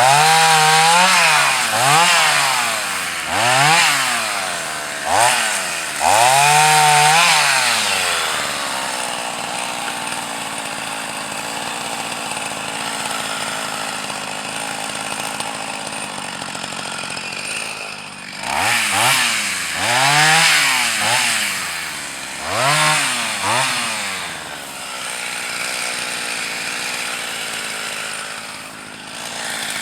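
Husqvarna 44 two-stroke chainsaw bucking wood: the engine revs up and down in a series of short blips, with longer stretches of steadier running in between.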